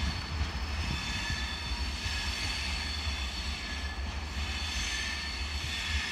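Steady, distant rumble of a departing diesel-hauled passenger train as its coaches roll away down the track, with a few thin, steady high tones above it.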